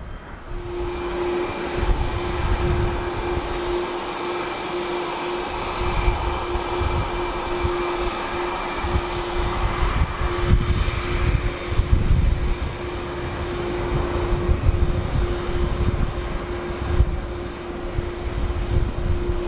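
Airbus A330-200's twin Rolls-Royce Trent 700 turbofans running at taxi power as the airliner taxis slowly past. A steady hum and a high whine come in about half a second in, over a low, uneven rumble.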